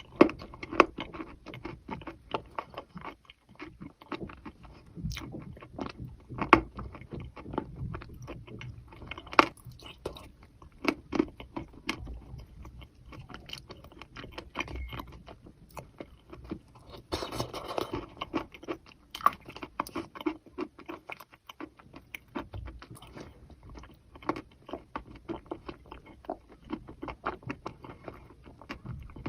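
A person biting and chewing wet chalk coated in thin clay paste: irregular sharp crunches and wet chewing throughout, with a denser stretch of crunching about two-thirds of the way in.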